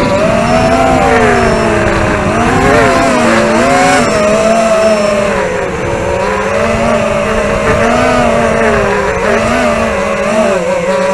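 Racing quadcopter's DYS 2204 brushless motors and Dalprop tri-blade props whining in flight, the pitch wavering up and down with throttle, over a rough rumble of wind on the onboard camera.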